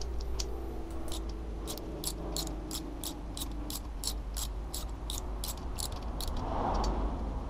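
Small ratchet wrench clicking steadily, about three clicks a second, as it turns a thread-repair tap down into an aluminium cylinder head. A soft rustle near the end.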